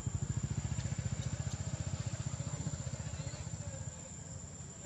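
Small motorcycle engine running at low revs: a fast, even low putter that fades after about four seconds.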